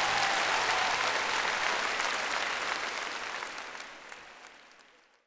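Studio audience applauding, a dense patter of clapping that fades away steadily to silence.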